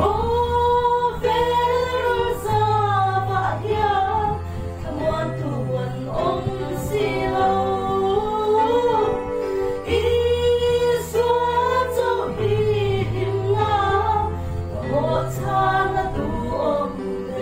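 Female vocal trio singing a gospel song together through microphones, over an instrumental accompaniment whose bass notes step along about once a second.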